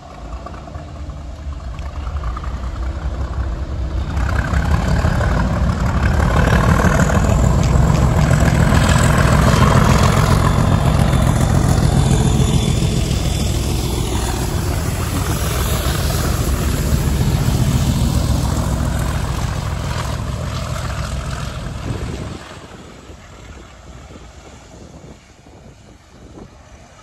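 Diesel-hauled freight train of tank wagons passing through the station at speed: the locomotive's engine grows loud as it arrives, then the wagon wheels clatter over the rail joints. The noise drops away suddenly about 22 seconds in as the end of the train goes by.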